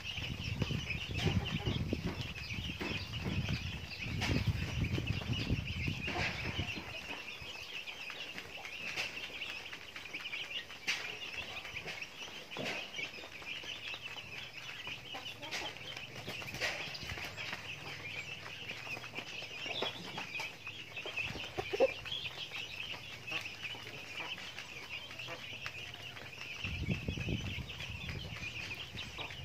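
Chickens and chicks clucking softly as they peck feed, with a few short sharp taps. A steady high-pitched chirring runs underneath.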